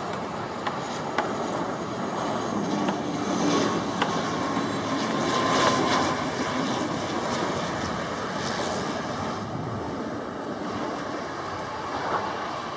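ATR 72-600 twin-turboprop landing: a steady rush of engine and propeller noise with a faint whine, loudest about six seconds in as the aircraft passes close. A few sharp clicks are scattered through it.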